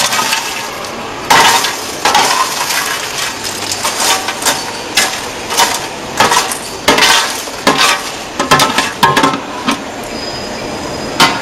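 A plastic popcorn scoop scraping and knocking on the stainless-steel deck of a popcorn machine cabinet in irregular strokes, with popcorn rustling as it is shovelled.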